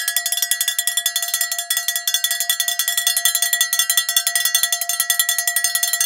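A bell ringing rapidly and continuously, many strikes a second, on one unchanging set of ringing tones.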